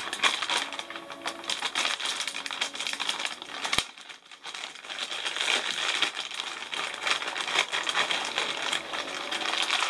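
Clear plastic bag crinkling and rustling as it is handled and opened to get the tripod out. There is a sharp click a little under four seconds in.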